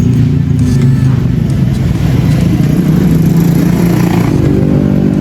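A motor vehicle engine running close by, a steady hum whose pitch shifts a little partway through.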